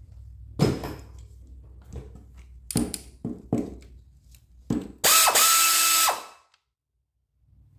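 A ratchet wrench working the transmission bolts on a small-block V8: several separate clicks and knocks, then about five seconds in a loud hissing whir lasting about a second, as an air ratchet spins a bolt.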